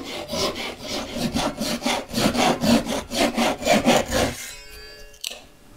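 Japanese double-edged pull saw (ryoba) crosscutting hardwood by hand with quick, even strokes, about four a second. The sawing stops about four seconds in, and a single knock follows near the end.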